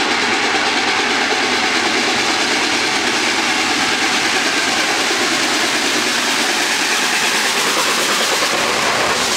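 LNER Peppercorn Class A1 steam locomotive 60163 Tornado working uphill past at close range, then its coaches rolling by near the end, heard as a loud, steady rush of noise.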